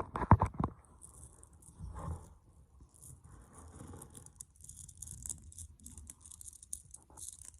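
A fidget toy being handled: a few sharp clicks about half a second in, then soft rustling and scraping.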